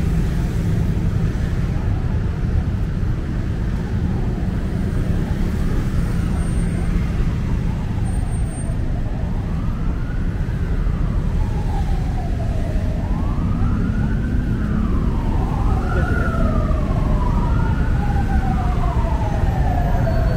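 Heavy city road traffic rumbling steadily, with an emergency vehicle siren wailing up and down about every two seconds, growing louder from about halfway through; near the end two siren tones overlap.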